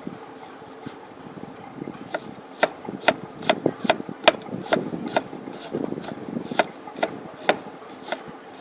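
A kitchen knife roughly chopping a brown onion on a cutting board: sharp, uneven knocks about two a second, starting about two seconds in.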